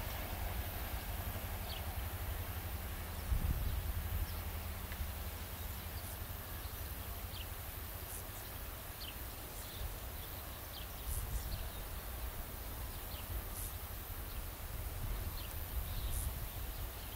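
A low, uneven rumble with scattered short, falling bird chirps.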